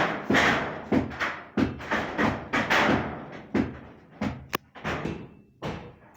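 A rapid, irregular run of heavy thuds and crashes, about two a second, each followed by a rattle. They grow fainter toward the end, as when a house wall is being knocked down.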